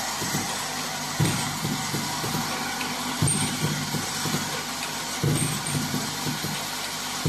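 Desktop dropper-bottle filling and capping machine running: a steady mechanical hum with a knock and a brief louder whir about every two seconds, as the machine works through its indexing and capping cycle.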